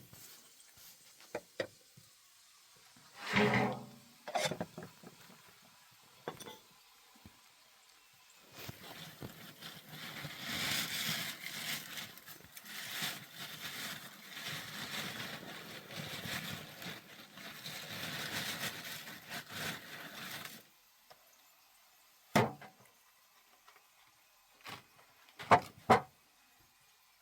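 Scattered knocks and clicks of objects being handled, with about twelve seconds of steady rustling or scraping in the middle.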